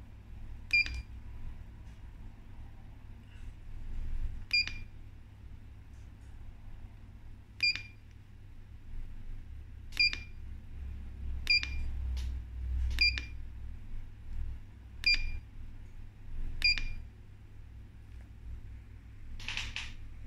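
ONWA KP-38 chartplotter's key beeps: eight short, high beeps spaced a second or two apart as its buttons are pressed to zoom the chart in and out, over a low steady hum. A brief rustle near the end.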